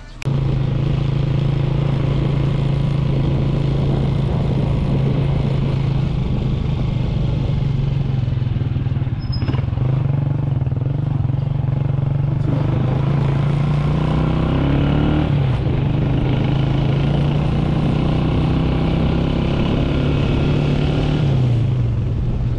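Motor vehicle engine running steadily at a near-constant pitch while moving along a road, with road noise; the pitch dips slightly near the end.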